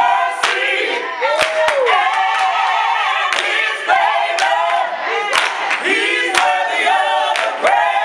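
Choir singing, with sharp claps now and then.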